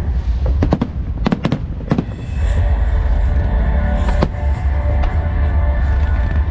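Fireworks bursting: a quick cluster of sharp bangs in the first two seconds and one more about four seconds in, over steady music and a deep continuous rumble.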